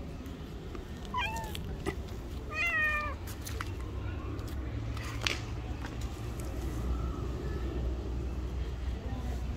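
A stray cat meows twice, two short wavering calls about a second apart, followed a couple of seconds later by a single sharp click.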